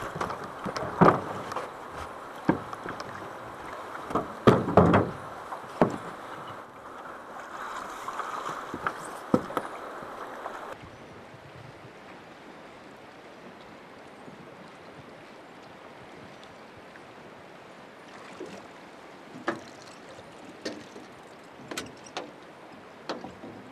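Drift boat on a river: a steady rush of water with several loud knocks and thumps in the boat in the first half. About halfway through it drops suddenly to a quieter water hiss, with a few light clicks near the end.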